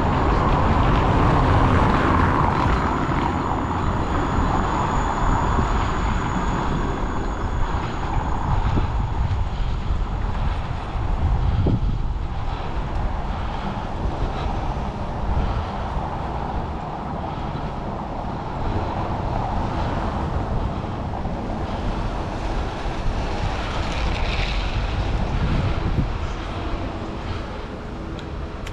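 Steady rumble of a bicycle rolling over cobblestones, with wind buffeting the camera microphone, heavy in the low end.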